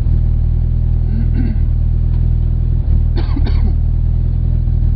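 Rally car engine running at a steady, even drone, with no clear revving.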